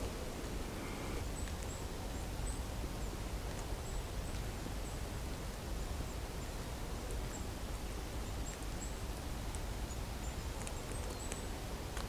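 Quiet forest ambience: a steady low hiss and rumble, with faint, thin, very high bird chirps again and again, and a few soft clicks and rustles near the end.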